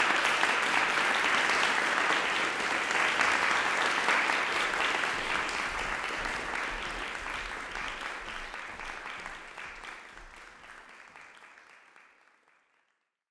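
Audience applauding, then fading away over the last several seconds.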